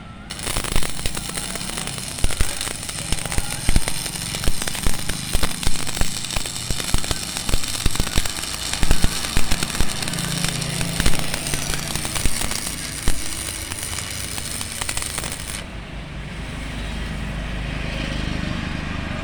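Electric arc welding: the arc strikes at the start and crackles steadily with many sharp pops for about fifteen seconds, then breaks off suddenly, leaving a low hum.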